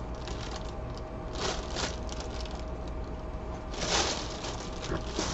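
Faint rustling and handling of packaging, with brief scrapes about a second and a half in and again near four seconds, over a low steady hum.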